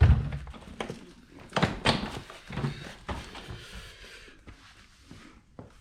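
Knocks and clunks of hard plastic and metal parts as a pressure washer is handled and shifted during disassembly. A loud clunk opens it, more knocks follow about one and a half to two seconds in, then smaller ticks.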